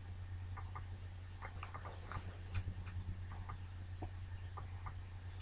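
Faint, irregular light clicks and taps of makeup items being handled, over a steady low hum.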